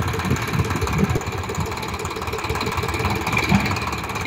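Farm tractor's diesel engine running at idle, a steady low rumble with an uneven pulse, while it holds the hydraulic tipping trailer's bed raised.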